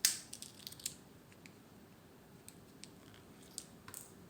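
Victorinox Swiss Army knife's tools being opened out of the handle: a sharp metallic click at the start, then scattered lighter clicks and ticks as the blades and tools snap against their springs.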